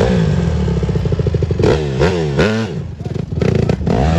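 Honda CRF150R's single-cylinder four-stroke engine revved in several quick throttle blips, its pitch rising and falling, then opened up near the end as the bike lifts into a wheelie.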